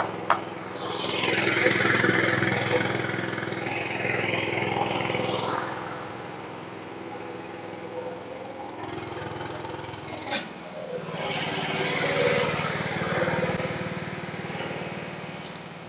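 A vehicle engine running steadily, with two swells of passing-traffic noise that rise and fade, one early and one about 11 seconds in. A single sharp knock just after the start and another about 10 seconds in.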